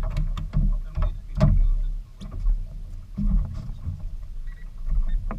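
Small fishing boat on the water: a loud, uneven low rumble with several sharp knocks, the strongest about a second and a half in and again near the end.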